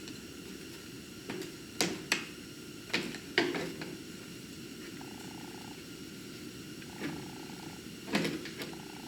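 Scattered sharp clicks and knocks, several close together in the first few seconds and a couple more near the end, as a wiring-harness plug is jostled and pried loose from a pickup's bumper. Under them runs a steady low rumble.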